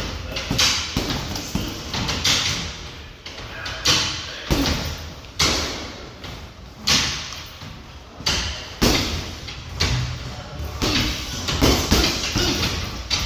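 Hard punches landing one after another: an irregular series of sharp, heavy thuds about once a second, echoing in a large room.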